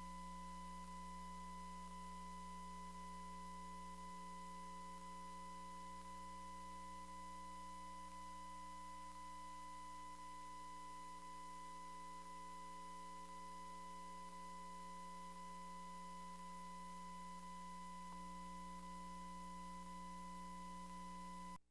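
Faint steady electrical hum with a thin, unwavering high-pitched tone over it, no other sound, cutting off abruptly just before the end.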